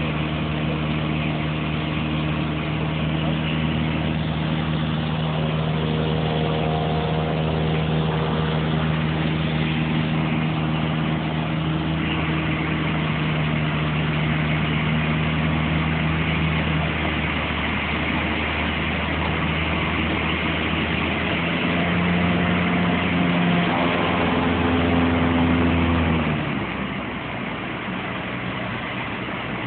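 Cessna 152's four-cylinder Lycoming engine and propeller running steadily in flight, with a steady rush of airflow. The engine note rises a little about two-thirds of the way through, then drops and grows quieter near the end as power comes back.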